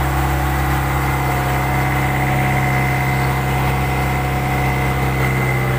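Fishing boat's engine running steadily: a constant low drone with a thin steady whine above it.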